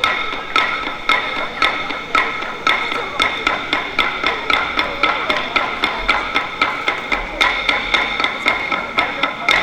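Dadeumi: wooden laundry clubs beating cloth on a stone block in a steady rhythm, about two strikes a second and quickening to about three a second halfway through, with singing over it.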